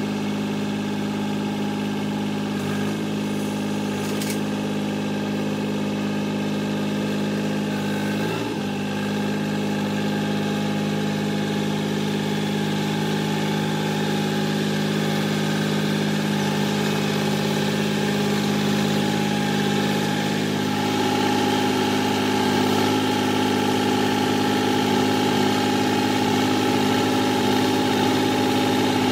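Kioti CK3510 SE compact tractor's three-cylinder diesel engine running steadily at idle, growing a little louder about two-thirds of the way in as the tractor reverses closer.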